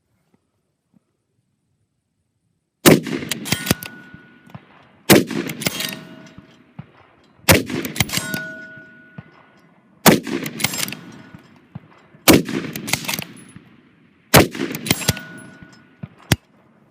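Six rapid rifle shots from a bolt-action 6mm Creedmoor precision rifle with a muzzle brake, about two seconds apart, the first about three seconds in. Each shot is loud and sharp and trails off in an echo, with smaller clicks between shots.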